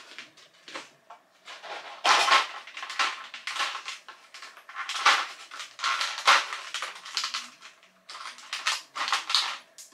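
Irregular metallic clinks and rattles as a nut is fitted and tightened on the axle holding a plastic wheel to a metal grill stand, in short clusters every second or so.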